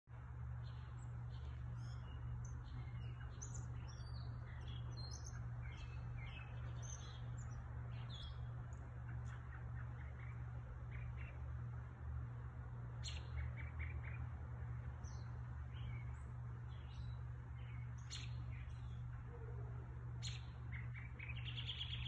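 Songbirds singing outdoors, a scatter of short chirps and whistled notes with a quick run of notes near the end, over a steady low hum.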